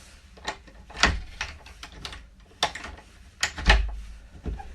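A run of sharp clicks and clacks, about eight, unevenly spaced. A garden patio door's lock is being worked with its key and handle, the bolt now throwing since the door's alignment problem was fixed.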